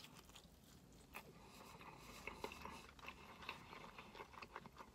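Faint mouth sounds of a person chewing a bite of breaded fried chicken strip: soft, scattered small clicks and squelches.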